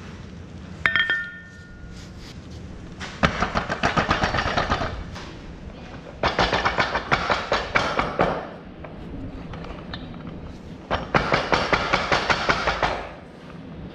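Impact wrench hammering in three bursts of about two seconds each, undoing bolts on a disc mower's drive pods. A short ringing metal clank comes about a second in.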